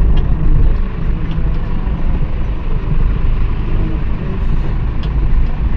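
Car engine and road noise heard from inside the cabin while driving: a steady low rumble with a few faint clicks.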